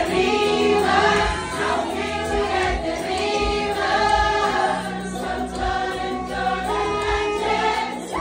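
Background music: several voices singing together, choir-style, over a low beat.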